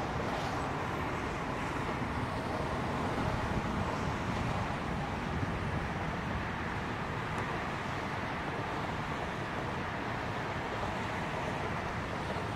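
Steady wash of distant highway traffic, tyres and engines on the elevated roadway across the river, with some wind on the microphone. No single car stands out as it passes.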